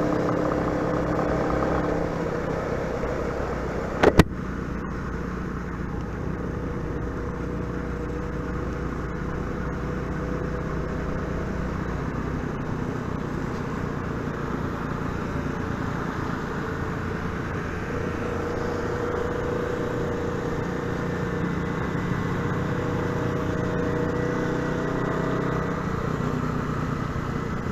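Motorcycle engine running on the road, its pitch stepping up and down a few times as the throttle and gears change. A single sharp click about four seconds in.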